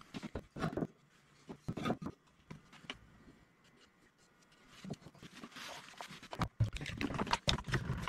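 Small wooden box parts being handled on a workbench: scattered light knocks and taps of wood on wood and bench. They turn into a quicker, busier run of clicks and knocks in the last second or so, as one-handed bar clamps are fitted.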